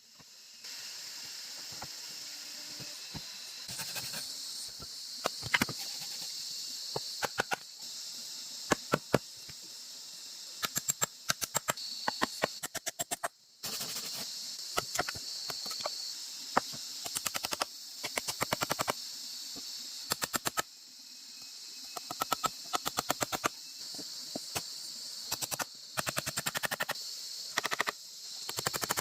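Quick sharp knocks of a hand tool striking wood or bamboo, coming in rapid bursts of several strikes again and again, over a steady high-pitched hiss.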